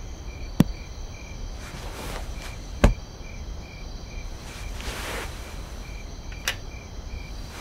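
Crickets chirping in an even rhythm, about two to three chirps a second, with a few sharp clicks and one louder knock about three seconds in.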